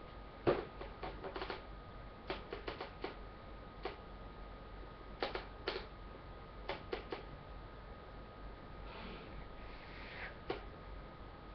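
Light clicks and taps in small irregular clusters from makeup being handled, such as compacts and a brush being picked up and set down, with a soft swishing noise near the end.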